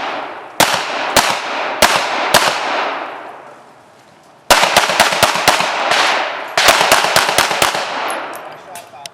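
Pistol shots fired at speed: a few spaced shots, a pause of about a second and a half, then two fast strings of about half a dozen shots each. Every shot rings out with a long echo.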